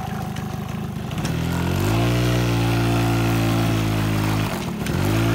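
An engine running and speeding up, its pitch rising and then holding steady. About four and a half seconds in it drops off briefly, then picks up again, as at a gear change.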